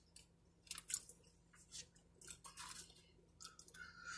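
A person chewing food close to the microphone: faint, irregular wet mouth clicks and smacks. Near the end comes a short, steady sucking sound as she draws a thick milkshake up through a straw.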